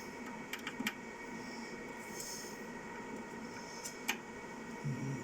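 Faint steady hiss with a few thin high-pitched whines, broken by sharp clicks about half a second in, near one second and about four seconds in.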